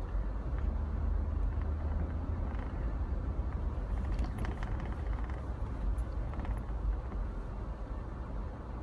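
Off-road 4x4 vehicle running, a steady low rumble, with a few faint clicks and rattles about halfway through.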